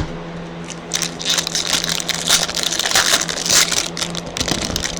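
Irregular crinkling, scraping and rustling of trading-card packs and their wrappers being handled, over a steady low hum.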